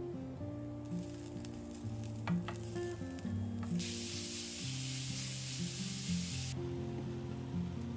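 Ground beef with minced garlic frying in oil in a stainless steel pan, sizzling as it is stirred with a wooden spoon, with a few light clicks early on. The sizzle turns much louder a little before halfway and drops back sharply about three seconds later.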